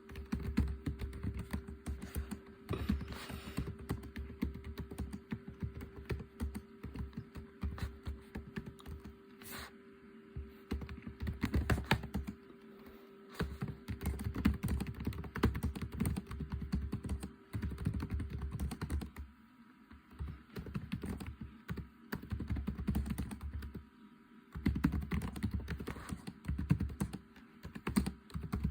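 Typing on a computer keyboard: fast, irregular key clicks in runs broken by short pauses, over a faint steady hum.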